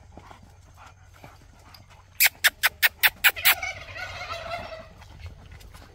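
Domestic fowl calling: a quick run of about seven harsh notes, then a second or so of noisier, wavering calling.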